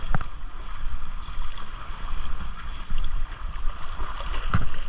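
Seaside wind rushing over the microphone with water washing in the shallows, a steady noisy rush with brief knocks just after the start and near the end.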